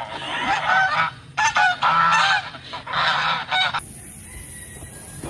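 Loud, harsh animal calls in rapid overlapping bursts that stop about three-quarters of the way through, followed by a steady high hiss.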